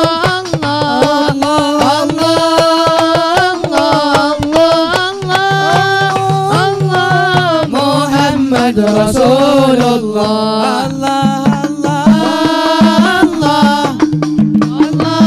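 A man singing an Arabic qasida with long held notes and ornamented turns, over hand drums beating a steady rhythm.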